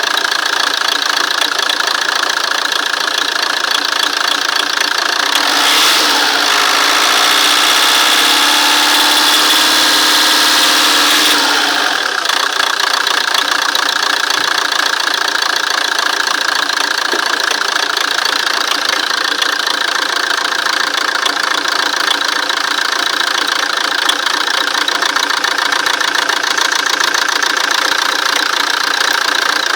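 Fiat Doblo 1.9 JTD four-cylinder common-rail diesel idling with a steady rapid knock. Between about six and twelve seconds in the engine note shifts and grows slightly louder, then settles back. The knock comes on a few minutes after a cold start and goes once the engine is warm; the owner takes it most likely for a knocking injector.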